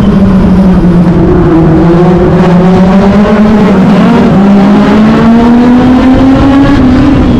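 Onboard sound of a Legend race car's Yamaha motorcycle engine running hard and very loud. Its pitch drops over the first second or two, then climbs steadily as the car accelerates, and begins to ease off near the end.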